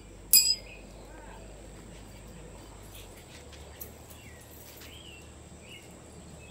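A short sharp clink about a third of a second in, then quiet outdoor ambience with a few faint bird chirps.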